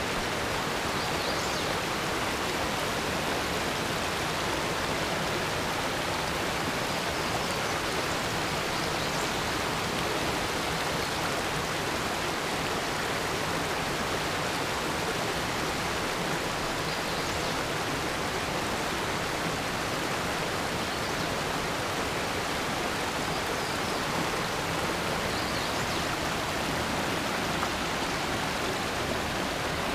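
Small mountain creek rushing over rocks and little cascades: a steady, even rush of water.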